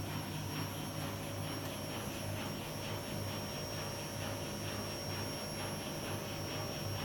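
Bosch Logixx 8 washing machine's inverter motor spinning the drum in its spin cycle at about 1000 rpm and building speed toward 1400, a steady, quiet hum with a thin whine. A second washing machine with a brushed motor is also spinning in the background.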